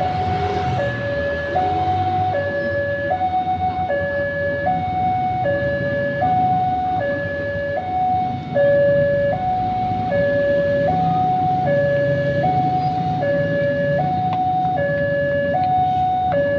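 Railway level-crossing warning alarm: an electronic two-tone signal alternating steadily between a high and a low tone, each held about three-quarters of a second, sounding while the barrier is lowered to warn of an approaching train.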